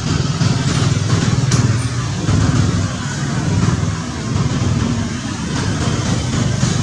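Steady low rumble of a motor engine running, with no clear change or break.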